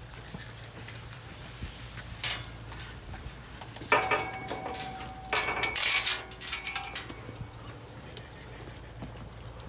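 Steel clanking and rattling of metal dairy-yard fittings: a single knock a couple of seconds in, then about three seconds of ringing metallic clatter.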